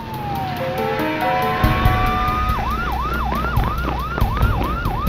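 Police car siren: a slow wail that falls and rises, then switches about two and a half seconds in to a fast yelp of about three cycles a second, over a low rumble.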